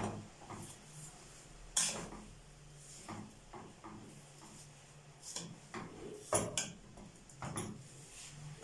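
A metal spoon clinking and scraping against an aluminium pot while grated carrots and sugar are stirred, in irregular knocks with a louder cluster past the middle.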